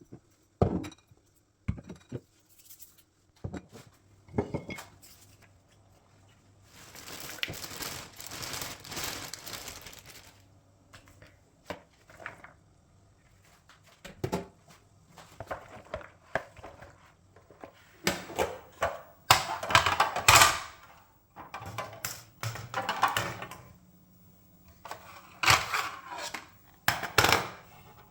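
Household handling sounds: irregular knocks and thunks of objects being moved and set down, with stretches of rustling and crinkling in between.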